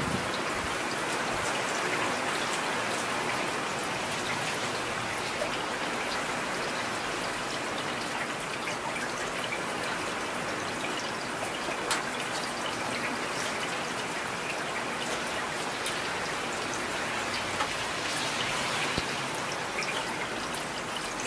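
Heavy rain falling steadily: an even, dense hiss of downpour.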